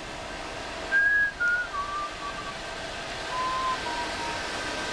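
A person whistling a short phrase of clear notes that step downward in pitch, starting about a second in, over a steady faint hum.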